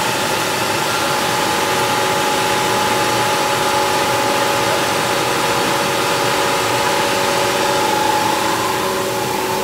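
Instant-noodle production line machinery running steadily: a constant mechanical drone with several held whining tones over an even hiss.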